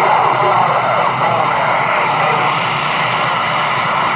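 CB radio receiver, unkeyed between transmissions, putting out loud steady static hiss with faint warbling traces of distant overlapping stations coming in on skip.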